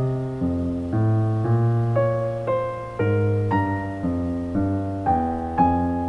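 Background piano music: gentle notes and chords struck at an even pace of about two a second, each fading after it is played, over held low bass notes.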